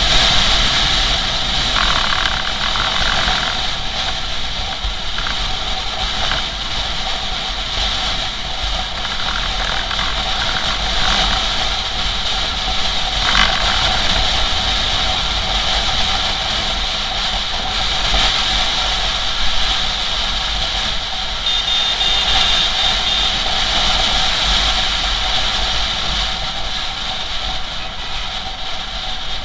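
Motorcycle ridden at highway speed: a steady engine note with wind rushing over the camera's microphone.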